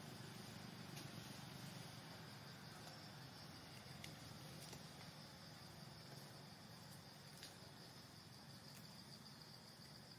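Faint, steady chirring of insects in the forest, one continuous high-pitched band over a low hum, with a few faint ticks.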